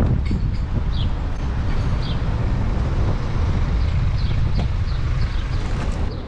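Wind buffeting a bike-mounted action camera's microphone while riding, a steady low rumble mixed with street and traffic noise. Short high chirps come through about once a second.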